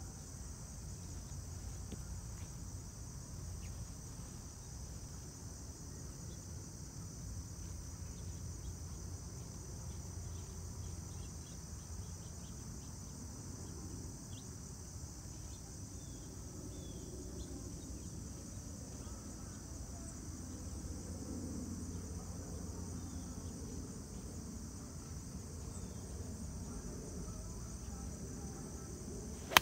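Steady high-pitched chorus of insects, with a low rumble of wind on the microphone.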